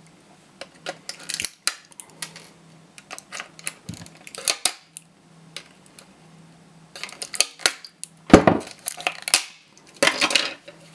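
Hard plastic casing of a laptop battery pack being pried and cracked open with pliers: irregular clicks, scrapes and snaps, with the sharpest crack about eight seconds in and another cluster of snaps near the end.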